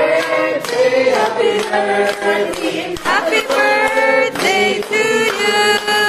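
A group of voices singing together in held, sustained notes.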